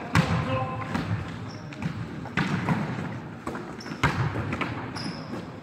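Basketball game on a wooden sports-hall floor: ball bounces and thuds, short high sneaker squeaks, and players' voices, all echoing in the hall.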